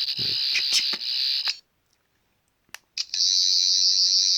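13th Doctor sonic screwdriver toy playing its electronic buzzing sound effect through its small speaker, a high-pitched warbling whirr. It cuts off about a second and a half in, a button clicks, and it starts again about three seconds in.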